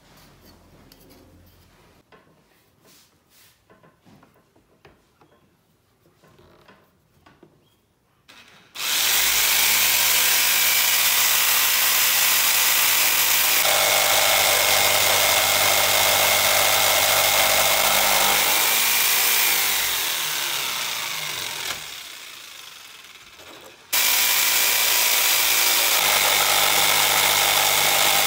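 Electric jigsaw cutting a wooden board. After quiet handling sounds, the saw starts about nine seconds in and runs steadily, slows and fades after about twenty seconds, then stops and at once starts up again at full speed.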